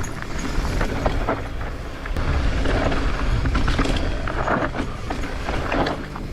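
Mountain bike riding down a dirt trail: steady wind rumble on the microphone, with clicks and rattles from the bike over rough ground.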